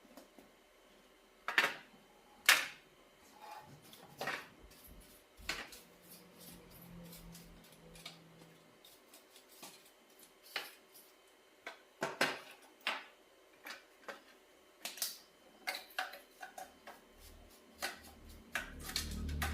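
Irregular clicks and light knocks from small tools and parts being handled, with a few sharper taps among them. A low hum comes up near the end.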